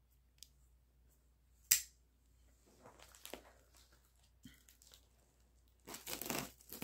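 A single sharp click as the Kizer Yacht folding knife's blade is snapped open, then rustling and crinkling of a taped plastic mailer being handled and sliced, with a louder crackling stretch near the end as the blade cuts through it.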